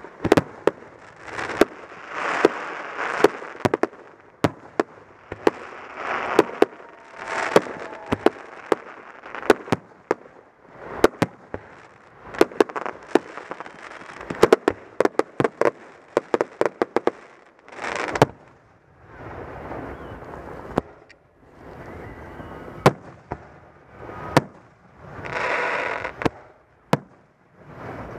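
Aerial fireworks display: a rapid, irregular series of sharp bangs from shells launching and bursting, with a second or so of noisier rushing sound after several of them.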